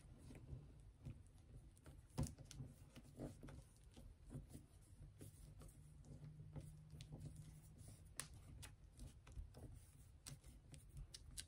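Near silence: faint scattered taps and rustles of fingers pressing soft Model Magic modeling compound onto a paper stencil, over a low steady room hum.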